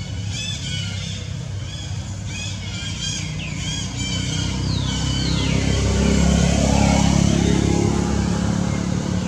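Infant macaque crying in repeated short, high, falling squeals, with a longer falling cry about five seconds in. Under it a low vehicle rumble swells through the middle and is the loudest sound.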